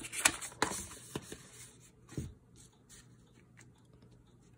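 Sheets of paper handled and shifted on a desk: a run of light rustles and taps, a soft thump about two seconds in, then only faint ticks.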